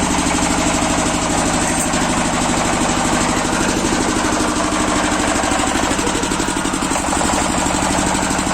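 Jiangdong JD 330 35 hp diesel engine running steadily at constant speed, driving a 40 kVA generator on test.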